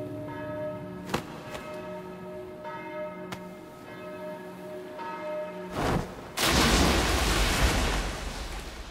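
Bell tones struck several times and ringing on, followed about six seconds in by a brief whoosh and then roughly two seconds of loud, bass-heavy noise that fades away.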